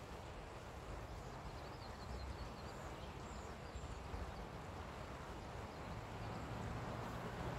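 Outdoor park ambience: a steady, fairly quiet noise with a low rumble, and a few faint bird chirps in the first half.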